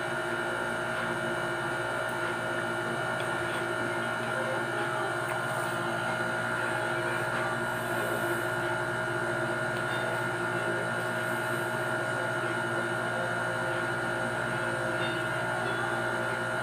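Steady background hum with several constant tones, unchanging throughout.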